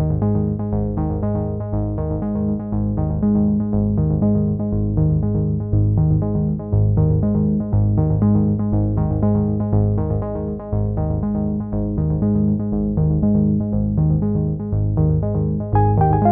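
Instrumental synthesizer music: quick repeated keyboard notes over a steady bass line, moving into a new phrase near the end.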